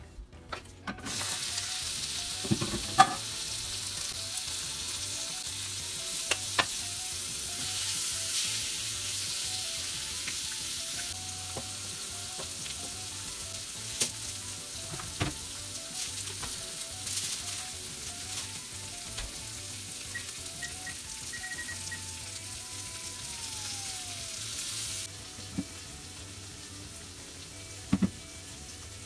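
Thin pork slices sizzling in a hot frying pan, the sizzle starting about a second in as the meat goes in, with a few sharp clicks and knocks from handling. The sizzle drops to a quieter level near the end.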